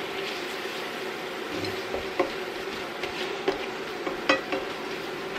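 Creamy onion pan sauce sizzling and bubbling as it reduces in a stainless steel skillet, stirred with a plastic spatula that scrapes and knocks against the pan a few times.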